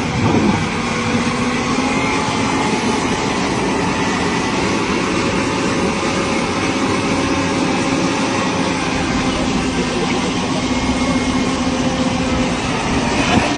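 A crane's heavy engine running steadily: a loud, even mechanical drone with a few held whining tones.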